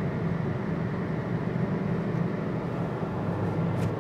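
Volkswagen Golf R's 2.0-litre turbocharged four-cylinder engine running steadily with the car under way, heard from inside the cabin together with road noise.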